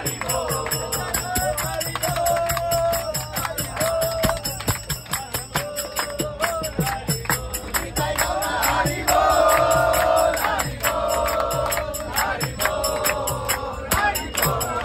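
A group of men singing a kirtan chant together to a fast beat of hand-clapping and a mridanga (khol) drum. The singing swells loudest about nine seconds in.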